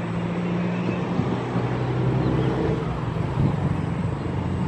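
Motor and propeller of a radio-controlled North Star seaplane, a low steady hum that shifts in pitch a few times as it taxis across the water.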